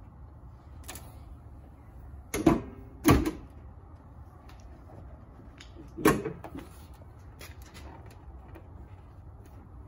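Hood of a 2018 Ram 1500 pickup being dropped shut, three sharp metal slams with a short ring: two close together about two and a half and three seconds in, and another about six seconds in.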